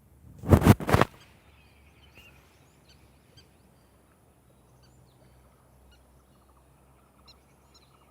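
A loud, brief rushing burst in two or three pulses about half a second in, then faint bird chirps over a low steady background.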